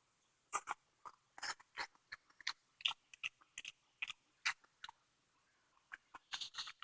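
A person chewing food: a string of short, faint clicks and crunches from the mouth.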